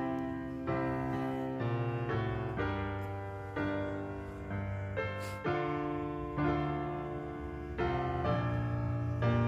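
Background piano music: notes and chords struck every half second to a second and left to fade.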